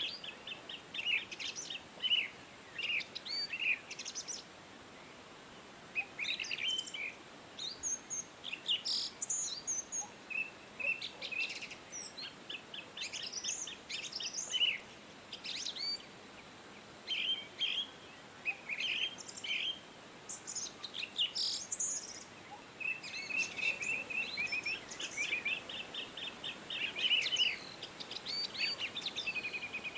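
Small birds chirping and twittering in clusters of quick, high, repeated notes and short trills, with brief pauses between bursts.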